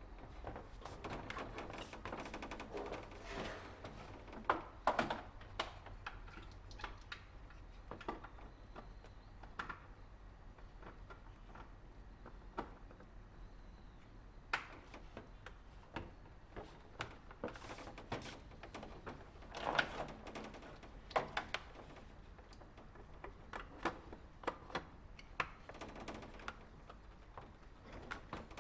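Irregular light clicks and knocks of small parts being handled, some in quick clusters, over a faint low hum.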